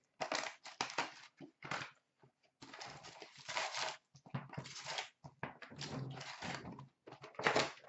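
Cardboard box of hockey trading cards being opened and its paper-wrapped packs handled: short, irregular bursts of rustling and scraping.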